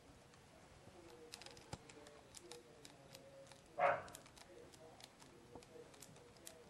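A kitten gives one short mew a little over halfway through, among faint scattered ticks and small rustles.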